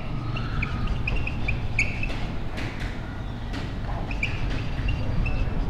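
Marker squeaking against a whiteboard as words are written: a run of short, high squeaks over a steady low hum.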